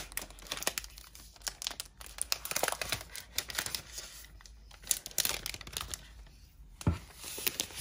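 Clear protective plastic film being peeled off the aluminium back of a new iPad Pro, crackling and crinkling in irregular bursts, with one sharper tick about seven seconds in.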